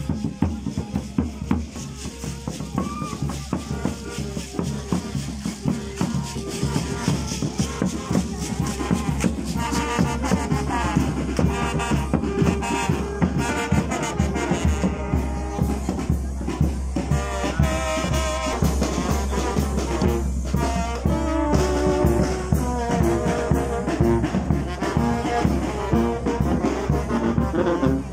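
Brass band playing festival music over a fast, steady drumbeat. The trumpet and trombone melody swells and grows louder about nine seconds in.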